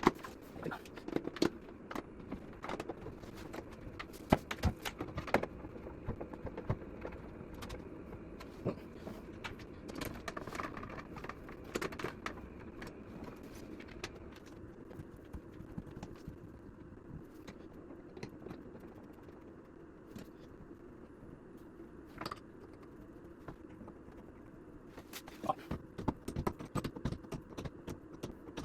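Scattered small clicks, taps and metallic clatter of hand tools and fittings being handled during work on an electric shower unit, busier at the start and again near the end.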